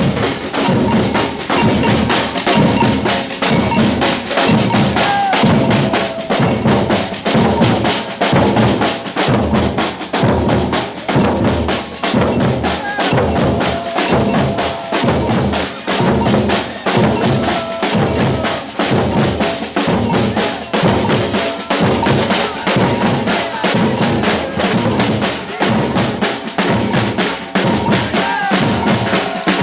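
Batucada drum ensemble playing a steady samba rhythm: deep bass drums hit about twice a second under a dense layer of snare drums and other hand percussion.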